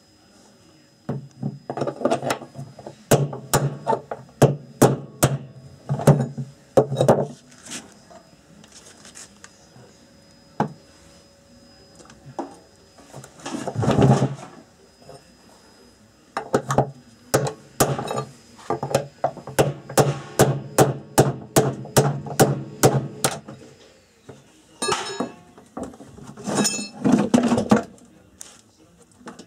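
Rapid sharp knocks, about two to three a second, in two runs of several seconds each, with a longer rushing noise between them and a burst of irregular knocking near the end.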